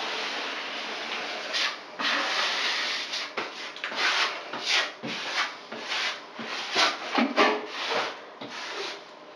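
A brush spreading Laticrete liquid waterproofing membrane over fiberglass mesh tape on the backer-board wall: rough scraping strokes. The strokes run together for the first couple of seconds, then come as separate swipes about one or two a second, and ease off near the end.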